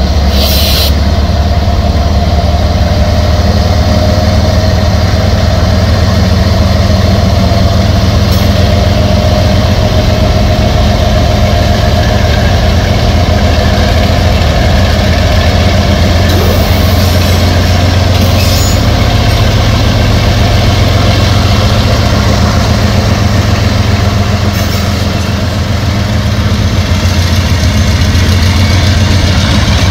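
CSX diesel-electric freight locomotives running with a steady, loud low engine drone as the train moves slowly.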